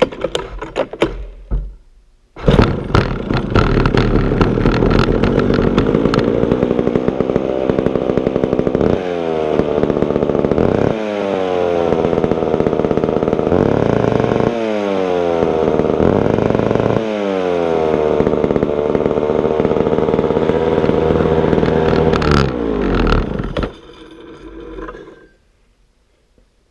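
McCulloch Super 550 two-stroke chainsaw starting after a few short pulls and clatter, catching about two seconds in. It runs fast, with its pitch dropping and climbing back four times as the throttle is worked, then shuts off near the end. It runs after a carburettor rebuild but idles a little high.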